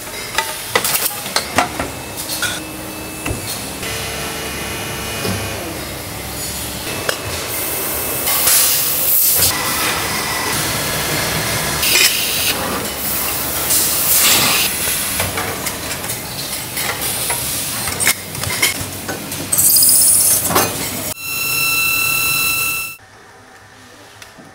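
Metal-working machinery in a stainless-steel bottle factory: a continuous hiss with frequent metal knocks and clanks. Near the end a loud steady machine whine runs for about two seconds, then cuts off suddenly, leaving a much quieter hum.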